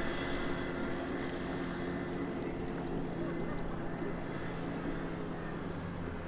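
An engine running steadily, a constant low hum.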